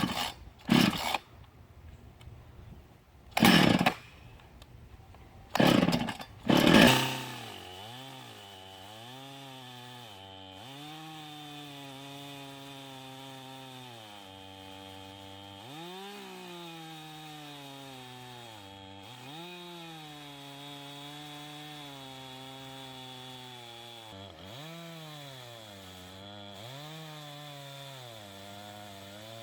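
Several loud, short noises, then a small chainsaw's engine starts about seven seconds in and runs fast, its pitch sagging repeatedly as it bogs down under load while ripping the log lengthwise.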